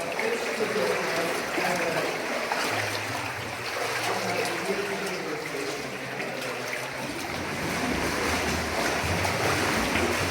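Steady rushing of a cave stream: water running over rock.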